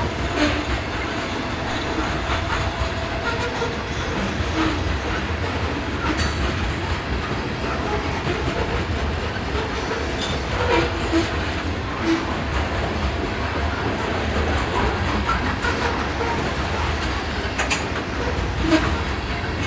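Freight train of covered hopper cars rolling past close by: a steady sound of steel wheels running on the rails, with occasional sharp clicks and knocks.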